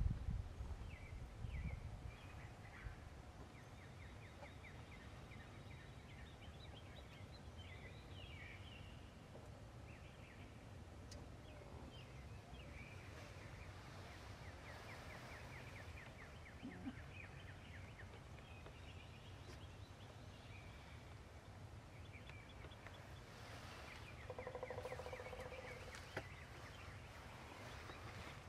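Faint outdoor field ambience: small birds chirping and trilling in the background over a low rumble, with a short, lower-pitched wild turkey call near the end.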